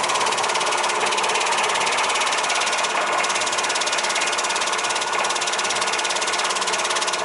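Industrial conveyor-fed meat slicer running steadily, its blade chopping a slab of steak into thin slices in a rapid, even clatter.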